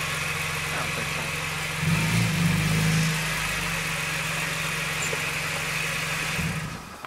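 BMW E46 M3's S54 inline-six idling steadily, swelling briefly louder about two seconds in before settling back to idle.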